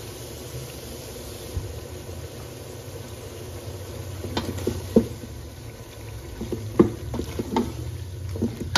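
Bottle gourd pieces sizzling in a steel pot over high heat, over a steady low hum. From about four seconds in, a wooden spoon stirs them, knocking and scraping against the pot several times.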